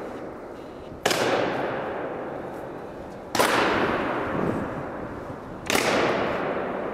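Honour guard soldiers' boots stamping on a stone floor in a slow ceremonial march: three heavy steps about two seconds apart. Each step rings out in a long echo off the hall's stone walls.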